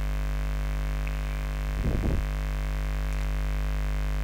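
Steady electrical mains hum picked up by the recording, with a short, low, rough noise about two seconds in.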